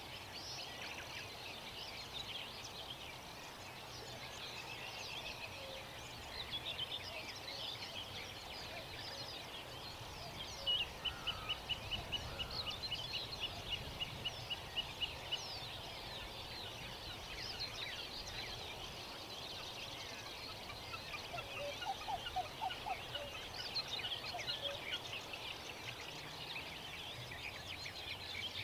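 Songbirds singing in a chorus of short, high chirps and trills. About eleven seconds in, one bird repeats a single high note in a fast, even run for about five seconds.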